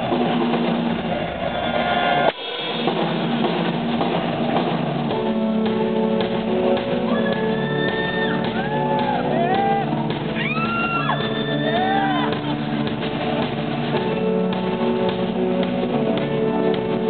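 Rock band playing live through a PA: drum kit and electric guitar with sustained chords, and gliding high notes that rise and fall in the middle. There is a brief dropout about two seconds in.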